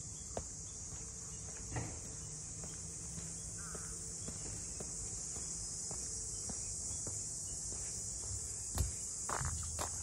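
Cicadas droning steadily in an even, high-pitched hiss, with occasional footsteps that grow more frequent and louder near the end.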